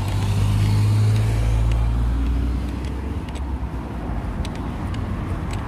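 A car driving past close by, its engine hum and tyre noise loudest in the first two seconds and then easing off as it moves away.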